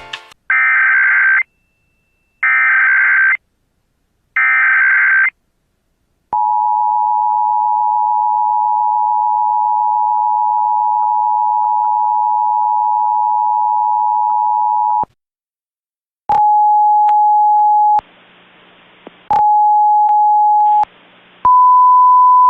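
Emergency Alert System tones: three one-second bursts of the warbling SAME digital header, then the steady two-tone attention signal for about nine seconds. After a short pause, a weather-radio alert sounds: two beeps of about a second and a half, each followed by faint hiss, then a louder steady tone.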